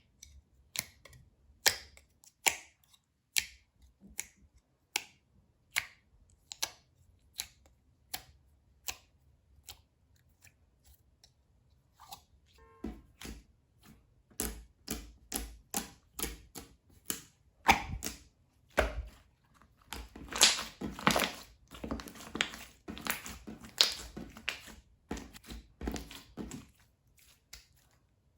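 Hands playing with slime: sharp, wet clicks and pops as it is pressed and folded. They come about one a second at first, then faster, louder and crowded together in the second half.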